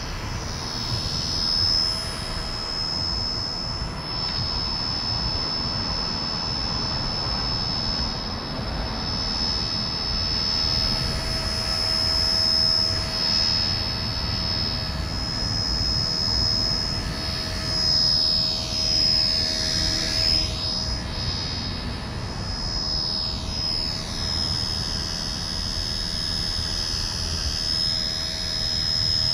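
Electric micro RC helicopter (XK EC145) running in flight, its motor and rotors making a steady high whine. The sound swirls and shifts as the helicopter moves about in the air.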